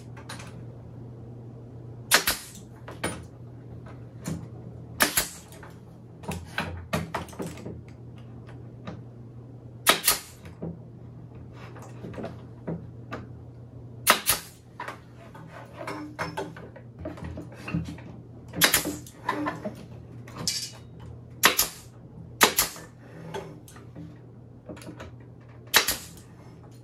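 Pneumatic nail gun firing into the pine pieces of a wooden beehive frame: a dozen or so sharp shots, one at a time a second to a few seconds apart, with light wooden knocks as the frame is handled between them.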